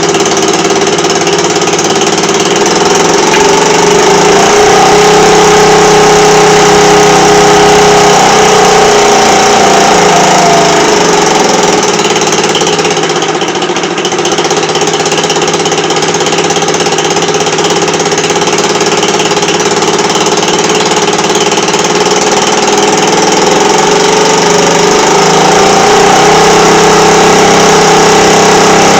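Scooter engine running, the pitch of its note sagging a little about ten seconds in and picking back up near the end without stalling.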